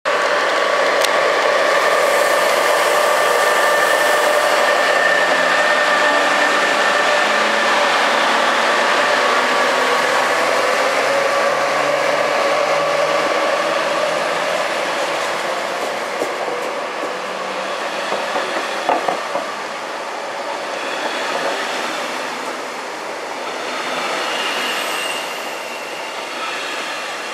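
Departing electric passenger train of M6 double-deck coaches hauled by a class 13 electric locomotive, rolling past close by. Steady high-pitched whining tones sit over the loud rolling noise through the first half, and the noise fades gradually as the train pulls away.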